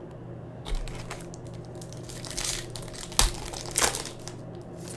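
Foil wrapper of a Panini Prizm basketball card pack crinkling as it is torn open by hand, in several short bursts with one sharp snap about three seconds in.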